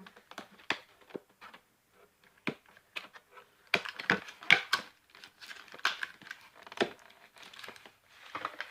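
Toy packaging crinkling and rustling as the play set's small pieces are pulled out of it by hand, in irregular clicks and crackles, loudest about halfway through.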